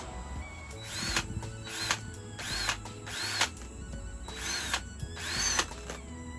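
Power drill run in about six short trigger bursts. Each burst whines up and winds back down as the motor spins up and stops.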